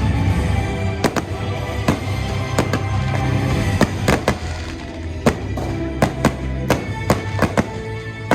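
Fireworks going off in many sharp, irregular bangs, coming faster in the second half, over loud recorded show music.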